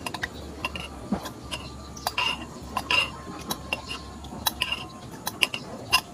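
A spoon stirring a chocolate mixture in a glass bowl, knocking and clinking against the glass in short, irregular taps.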